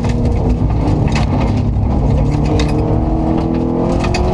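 Subaru Impreza rally car's flat-four engine heard from inside the cabin, pulling hard with its pitch climbing slowly. Several sharp clicks of gravel striking the car on the dirt road.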